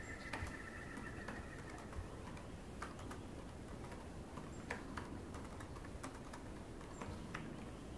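Faint, sparse key clicks of typing on a laptop keyboard, at irregular intervals. A faint steady high tone fades out in the first second or so.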